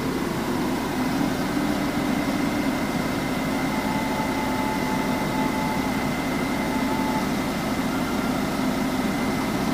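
Heavy diesel engine of a mining dump truck idling steadily with a smooth, even hum and a faint steady high whine over it.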